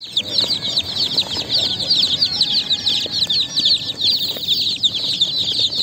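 A crowd of baby chicks peeping all at once: many high, quick, downward-sliding peeps overlapping in an unbroken chorus.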